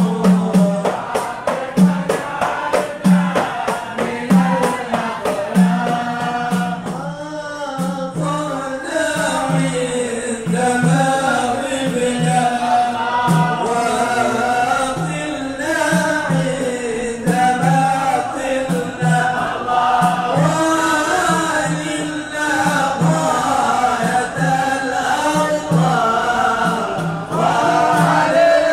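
Group of men singing a Maulid qasida in chorus through microphones, a devotional Islamic hymn, over a steady low beat. Sharp clicks or hits sound over it during the first seven seconds or so.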